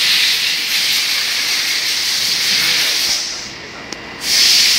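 GU2040 drill-grinding machine at work, a steady high hiss of grinding that drops away for about a second near the end, with a single click in the lull, then comes back.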